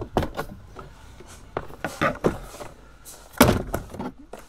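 A screwdriver clicks and knocks on the half-turn fasteners of a rubber floor access panel. About three and a half seconds in there is a louder, longer scrape as the panel is pulled up off the metal battery cover.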